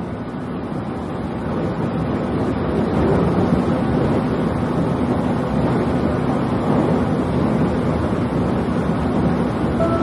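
Steady running rumble of an 811-series electric train, heard inside the passenger car, with a faint low hum; it grows louder over the first few seconds and then holds steady.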